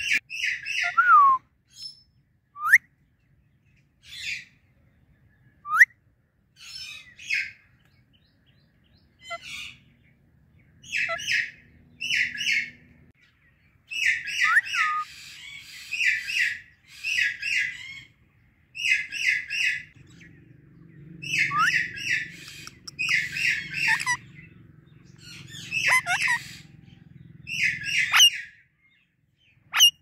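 Indian ringneck and Alexandrine parakeets calling: repeated short bursts of rapid, harsh chirps with a few thin whistled glides between them, coming more densely in the second half.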